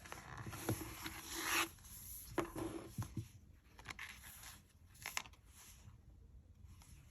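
Sticker book pages being flipped by hand: a paper rustle and scrape in the first couple of seconds, a few light taps and crinkles from the sheets, then quieter, softer rustling toward the end.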